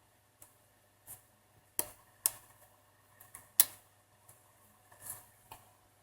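Small sharp clicks and lighter taps at irregular intervals: flex-cable connectors being pressed into their sockets on a smartphone's circuit board, with tools touching the parts.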